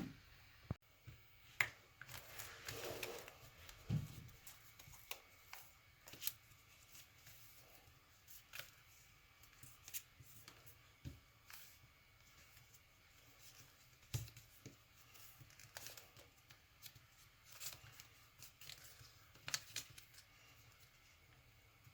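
Sheet of origami paper being handled, folded and creased by hand: faint rustling with scattered short crinkles and taps, and a longer rustle about two to three seconds in.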